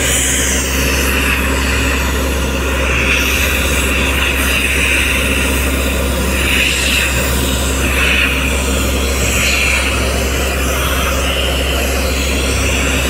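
Portable air compressor running steadily with its engine, while compressed air from a hand-held hose lance blasts dust off the road surface as a loud, wavering hiss.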